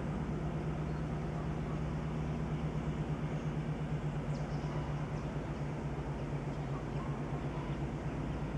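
TEP60 passenger diesel locomotive's two-stroke V16 diesel engine working under power as it hauls its train, a steady low drone with a slight pulsing beat.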